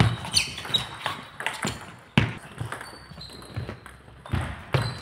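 Table tennis rally: the ball clicking off the bats and the table in an irregular run of sharp knocks.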